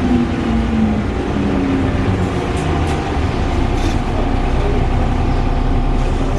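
Wright Gemini 2-bodied VDL DB300 double-decker bus running with a loud whirring: the whir rises in pitch over the first half second and falls away by about two seconds in, leaving a steady low drone.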